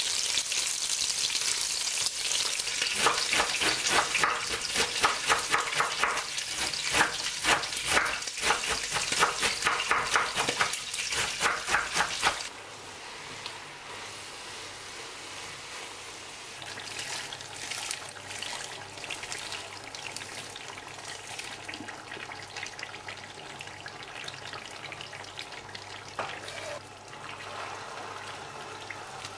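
Pork rib pieces frying in a nonstick pan: a loud sizzle full of spatter and crackle, with the clack and scrape of a spatula turning them. About twelve seconds in it cuts suddenly to a quieter, steadier sizzle as a spatula stirs cabbage, then sliced potatoes and onion, frying.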